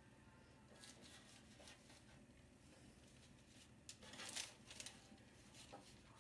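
Quiet room with a few faint light clicks, then a short burst of rustling and small ticks about four seconds in.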